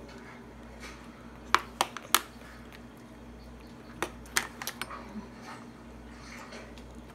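Hard clicks of a utensil and dishes knocking on a plastic high-chair tray: three sharp clicks about one and a half to two seconds in, then a quicker run of clicks around four seconds in.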